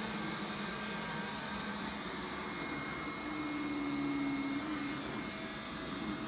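Roomba robot vacuum cleaner running steadily, its hum carrying a faint high whine.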